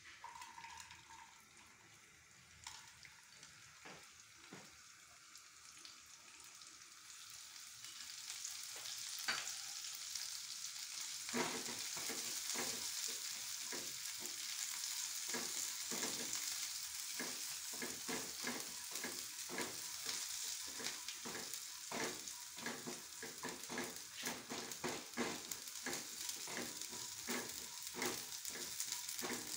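A tempering of mustard seeds, chana and urad dal and curry leaves sizzling in hot oil in a non-stick kadai while a spatula stirs it. The sizzle builds over the first third, and from then on steady taps and scrapes of the stirring come through the hiss.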